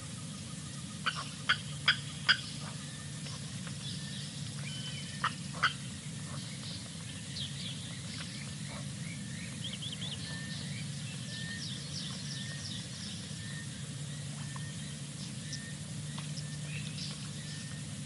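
Outdoor wildlife ambience from a live bush camera: many short, high chirps and calls, thickest midway, over a steady low hum. About a second in there are four sharp, loud clicks or calls, and two more about five seconds in.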